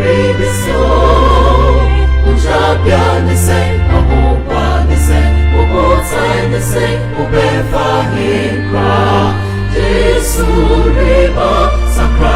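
Gospel music with a choir singing over held bass notes that change every second or two, and a regular light percussion beat.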